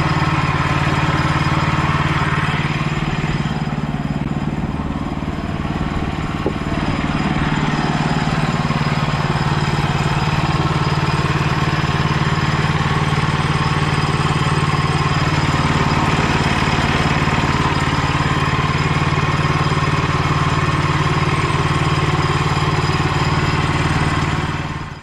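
A bandsaw mill's small engine running steadily at speed, with a brief dip in level a few seconds in.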